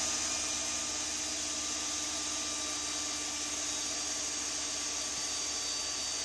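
Cordless drill running at a steady speed, spinning a stepper motor used as a generator to charge a capacitor. It makes a steady whine of several held tones with a hiss over them.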